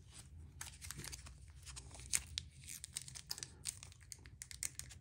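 Faint, irregular crinkling and clicking of a small clear plastic parts bag being handled.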